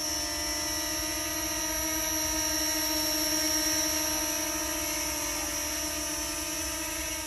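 Fimi X8 Mini quadcopter hovering low, its propellers and motors giving a steady whine made of several pitches at once.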